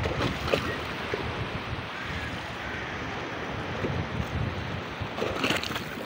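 Sea surf washing onto the shore, with wind buffeting the microphone; a louder wash comes about half a second in and another near the end.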